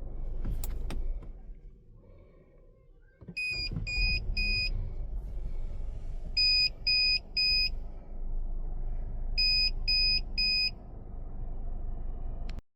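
A Geely car's warning beeper, likely the parking sensor, sounds in three groups of three short high beeps, over a low engine rumble, with two sharp clicks near the start. The owner says it beeps with no obstacle even though the sensor is clean: a false alarm.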